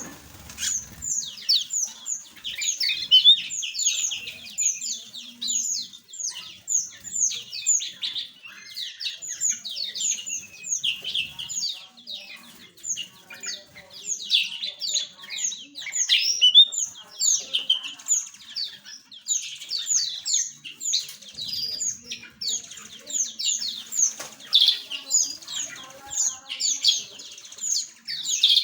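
A flock of small aviary birds chirping continuously, many quick, high-pitched chirps overlapping with no pause.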